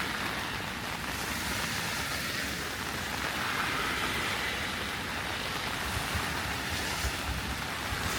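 Heavy rain falling steadily, a dense even hiss, with a few short low bumps near the end.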